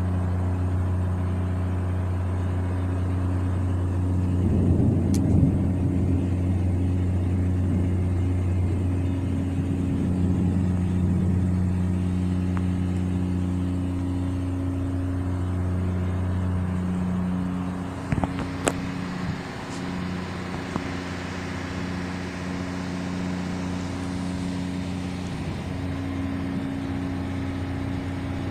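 Steady low drone of a ship's engine and machinery, heard from the open deck. About two-thirds through there are a few sharp clicks, and a hiss then rises over a slightly quieter drone.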